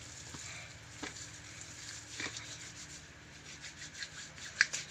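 Homemade glue slime, over-activated and rubbery, being kneaded and stretched by hand: faint rubbing with scattered small sticky clicks, the sharpest about four and a half seconds in.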